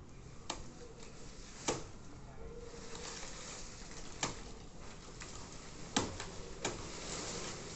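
Five sharp knocks at irregular intervals, with a rustling hiss that sets in about a third of the way through.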